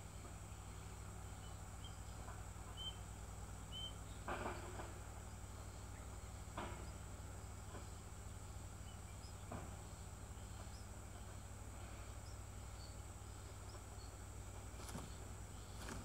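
Faint outdoor ambience: a steady high-pitched insect drone over a low hum, with a few faint short bird chirps in the first few seconds and several soft rustles, the loudest about four seconds in.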